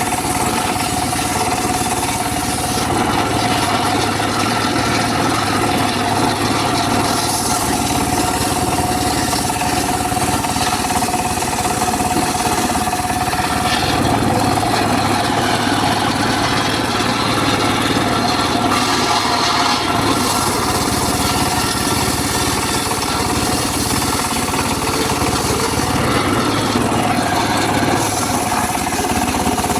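Homemade circular saw rig running steadily, its blade cutting teak, with a steady high whine over the machine's noise. The sound grows fuller and thinner every several seconds.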